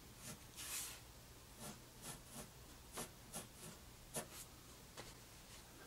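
Faint scratching of a pencil on paper: a string of short, separate strokes as small grid lines are drawn.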